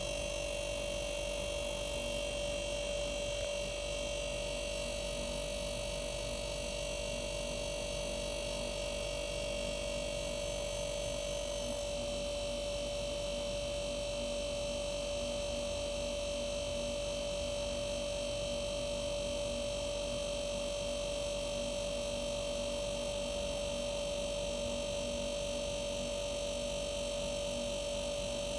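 Arçelik 5233 refrigerator compressor running with a steady hum and one unwavering tone over it.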